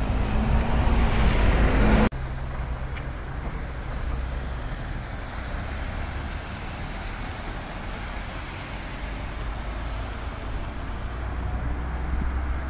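Vintage London double-decker bus's diesel engine pulling away, growing louder for about two seconds until it cuts off suddenly. Steady road traffic follows, with a van driving past.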